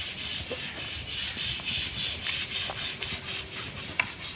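Sandpaper rubbed by hand over a steel chequer plate, scraping off rust in quick repeated strokes, with one sharp click about four seconds in.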